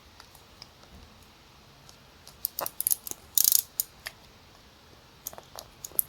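Travel alarm clock's mainspring being wound by hand: short spells of rapid ratchet clicking from the winding click, with pauses between spells.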